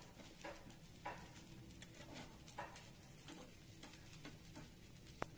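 Soft, irregular taps and scrapes of a metal spatula working a frying egg in a small pan, with a sharper click near the end.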